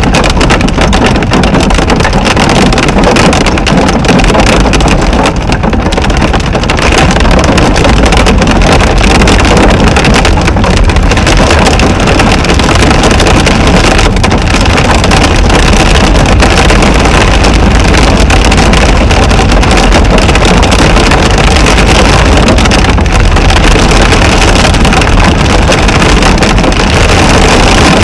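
Torrential rain and hail pounding on a car's roof and windshield, heard from inside the car as a loud, dense, unbroken drumming over a low rumble of wind and driving noise.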